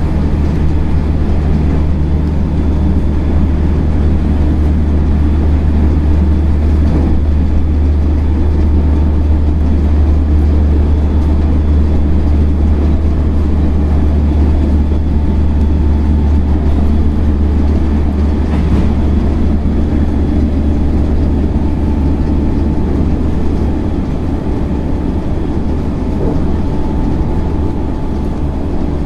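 Inside a JR Central 313 series electric train running between stations: a steady low rumble of wheels on rail with faint steady motor tones, easing slightly about three-quarters through.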